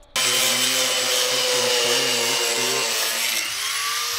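Electric power tool cutting a wooden trunk panel along a traced outline, starting abruptly and running steadily, its motor pitch wavering as the blade is fed through the wood.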